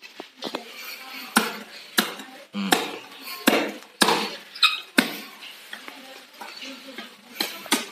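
A large knife blade being worked into a montong durian's spiky husk: a series of sharp, irregular knocks and cracks as the blade is wedged and levered into the seams. The fruit has only just ripened on the tree, so the husk is hard to split.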